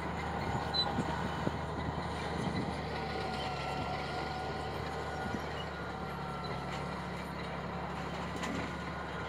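Crawler bulldozer's diesel engine running steadily under load as it pushes and levels earth, with a thin high whine over the low hum.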